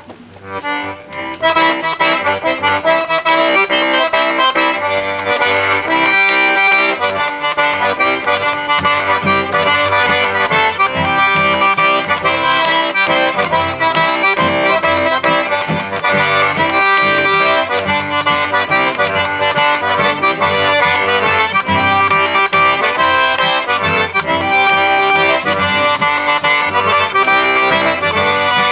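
Cajun diatonic button accordion playing an instrumental dance tune with acoustic guitar accompaniment, coming in fully about a second and a half in.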